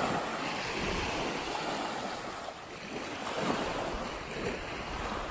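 Small waves washing and breaking onto a sandy shore, swelling and fading, with wind rumbling on the microphone.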